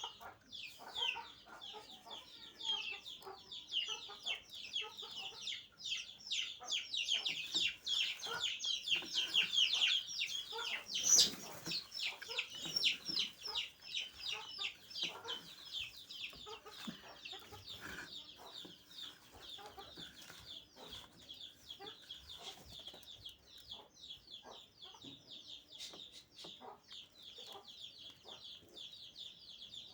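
Chickens clucking alongside a dense run of quick, high chirps, busiest in the first half. There is one sharp knock about eleven seconds in.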